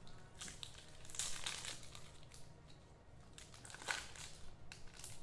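Crinkling of a card pack wrapper being handled, with a longer rustle about a second in and a sharp crackle near four seconds.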